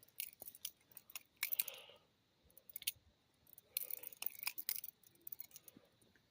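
Balisong (butterfly knife) being flipped, its metal handles and blade clicking and clacking against each other in quick irregular clusters, densest about four seconds in.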